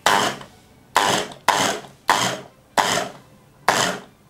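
Starwind immersion blender motor on its chopper bowl, pulsed six times in short bursts, the blades churning boiled vegetables in broth. Each burst starts suddenly and dies away within about half a second. The short pulses chop the vegetables coarsely, leaving pieces rather than a purée.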